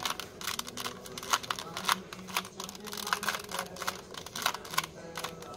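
A 2×2 Rubik's cube being scrambled by hand, its plastic layers turning with rapid, irregular clicks.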